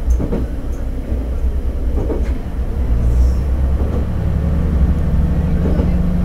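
Diesel railcar of the Akita Nairiku Jukan Railway running along the line, heard from inside the car: a low engine drone with paired clacks as the wheels cross rail joints, and a steady hum that sets in about four seconds in.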